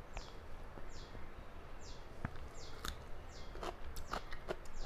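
Close-up mouth sounds of someone eating: chewing with sharp lip-smacking clicks, thickest from about three seconds in. Behind them a bird gives a high, quickly falling chirp over and over, a little under a second apart.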